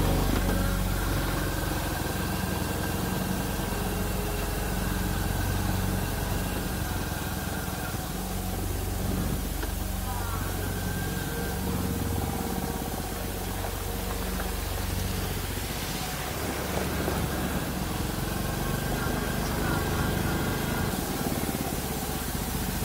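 Royal Enfield Classic 350's 349 cc single-cylinder engine running steadily as the motorcycle rides along, over a constant hiss.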